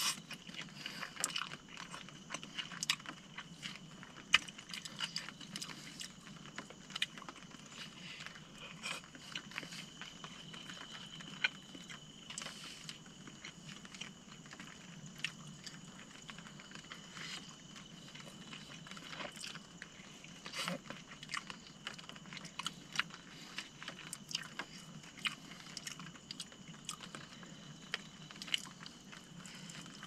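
A person chewing mouthfuls of glass noodles, with scattered small clicks of a fork against the bowl over a faint steady hiss.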